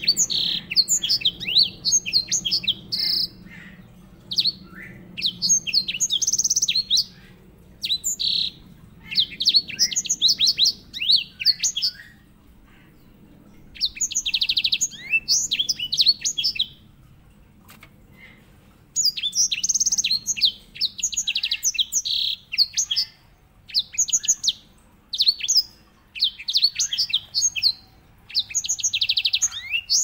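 Grey singing finch (white-rumped seedeater, Serinus leucopygius) singing. Its phrases of quick, high chirps and whistles run into fast rolling trills, broken by pauses of up to a couple of seconds.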